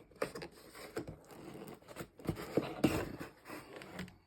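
Handling noise from a 12-gauge folding shotgun being moved about: irregular scrapes and about eight light knocks and clicks.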